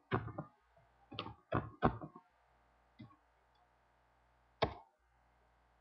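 Computer keyboard and mouse in use: a handful of sharp clicks and taps, clustered in the first two seconds, then one about three seconds in and a louder one near the end.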